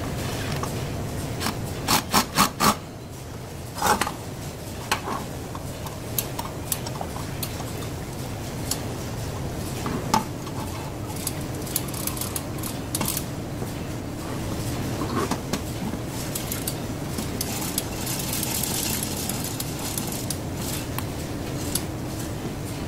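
Handling noise from reassembling a steel air hose reel: four quick sharp clacks about two seconds in, a knock, then scattered taps and a rubbing rasp as the air hose is fed onto the drum. A steady low hum runs underneath.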